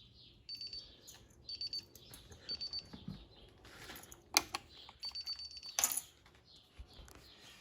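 DSC PowerSeries NEO alarm keypad beeping a short, high tone about once a second during arming, as it does when counting down to arm, with a longer beep about five seconds in. Two sharp clicks are heard, one shortly before the long beep and one just after it.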